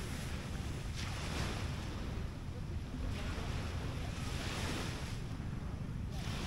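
Small waves washing onto the beach, the hiss of surf swelling and fading about every two seconds, over a steady low rumble of wind on the microphone.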